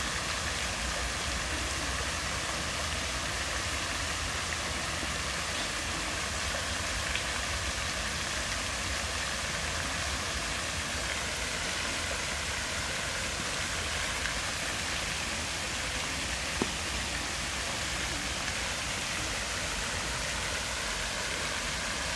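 Park fountain's many small water jets splashing steadily into a pool, with a low rumble underneath and a single sharp click about three-quarters of the way through.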